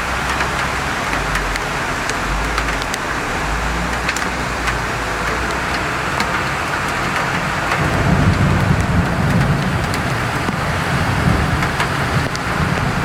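Heavy rain pouring down on a flooding street, a dense steady hiss with many sharp drip ticks. A low rumble swells about eight seconds in.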